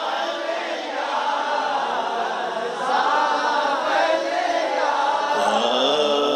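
A man singing a Punjabi naatiya kafi (a devotional naat) into a microphone, with no instruments, his voice gliding through long ornamented held notes.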